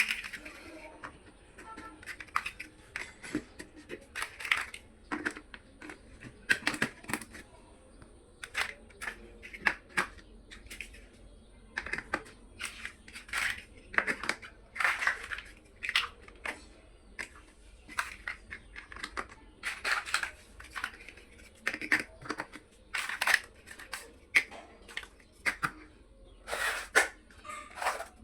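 Small plastic building bricks being handled and pressed together: irregular sharp clicks and short rustles, about one or two a second.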